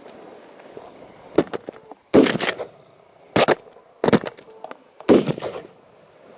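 Shotgun shots at flushed pheasant: four loud shots roughly a second apart, after a lighter crack.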